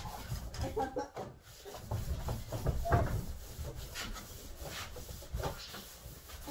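Irregular rubbing and scraping strokes by hand on a race-car part, with a louder stroke about three seconds in.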